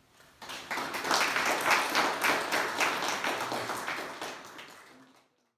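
Audience applauding: dense clapping starts about half a second in, is loudest over the next couple of seconds, dies down gradually and is cut off just after five seconds in.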